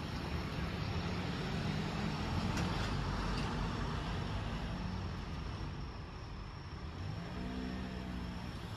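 Road traffic at a street intersection: a box truck's engine passes close, loudest a couple of seconds in, and near the end another vehicle's engine note shifts in pitch.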